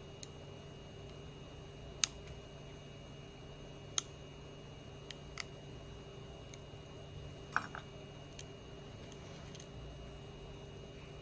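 A handful of sharp, scattered clicks and taps of small metal repair tools on phone parts during reassembly, the loudest about two and four seconds in, over a steady faint hum of room noise.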